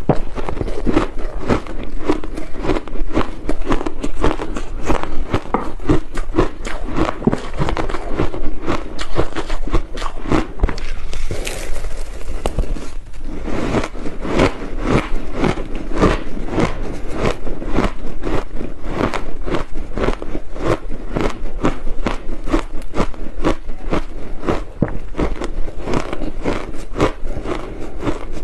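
Crushed ice being chewed close to a clip-on microphone: rapid, dense crunching, several crunches a second, with a short pause about thirteen seconds in.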